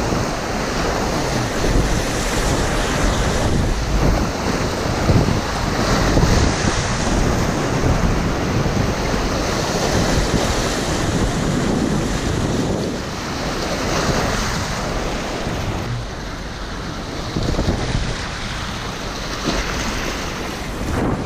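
Whitewater rushing around an inflatable kayak running a small rapid, with wind buffeting the microphone.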